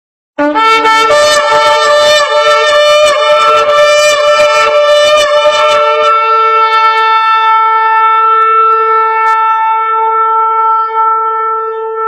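A big trumpet blown in one long note. It starts with a brief lower note, then sounds a loud, rough, buzzing blast that smooths out about six seconds in into a steady held tone.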